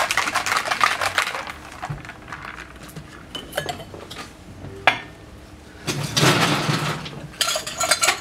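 Ice and metal clinking and rattling in stainless steel cocktail shaker tins while a drink is mixed and passed between the tins. A dense clatter at the start, a quieter stretch with a few single clinks and a short ringing tap, then loud ice rattling again near the end.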